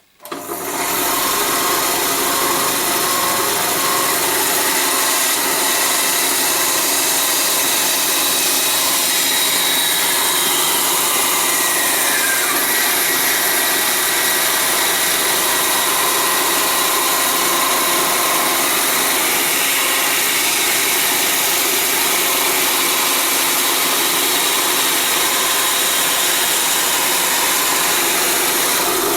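An electric power tool starts just after the beginning and runs steadily on wood.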